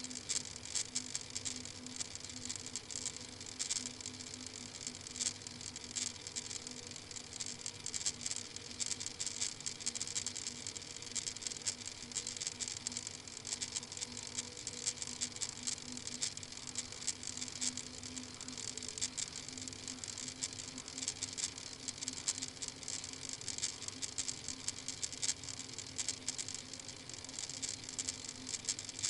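A steady, dense crackling hiss over a low, constant hum on a live webcam's audio feed.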